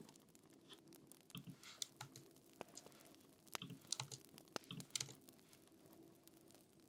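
Soft typing on a computer keyboard: irregular key clicks in two short flurries, over a faint steady hum.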